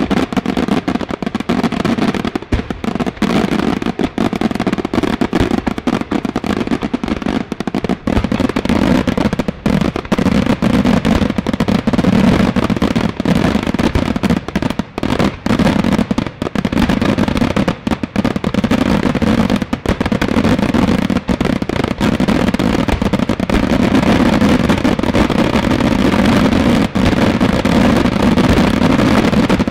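Daytime aerial fireworks shells bursting overhead in a dense, unbroken barrage of rapid bangs and crackling reports, many per second. It grows a little louder about halfway through and again near the end.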